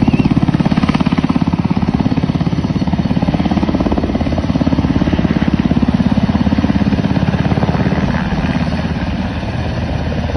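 Military helicopter hovering and lifting with a heavy slung load: its main rotor gives a loud, rapid, even beat over the turbine whine, easing off slightly near the end.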